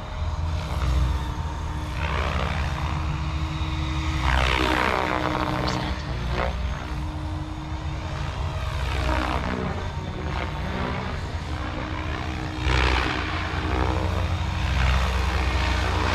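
SAB Kraken 580 electric RC helicopter in flight, its rotor blades and motor making a steady buzzing whine at a lowered head speed. The sound swells and sweeps in pitch several times as the helicopter makes passes, loudest about four seconds in and again near the end.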